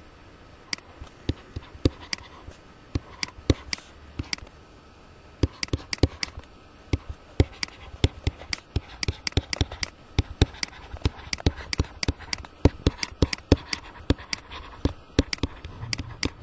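A stylus writing on a pen tablet, tapping and clicking sharply and irregularly with each stroke. The clicks are sparse at first and come thick and fast from about five seconds in.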